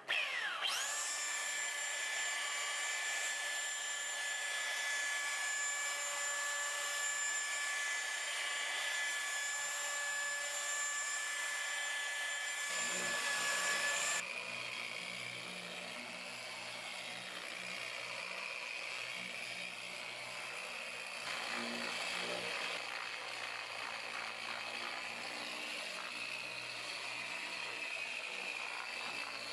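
Electric paint buffer spinning up at low RPM and running steadily with a high whine while buffing scratches out of car paint. About halfway through, the sound changes to a lower, duller hum.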